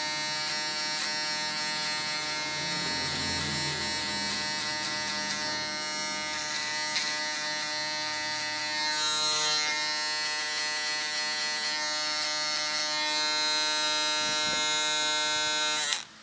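Andis foil shaver running with a steady electric buzz as it is worked over the back of the neck to erase the clipper and razor lines in a fade. It is switched off and stops abruptly near the end.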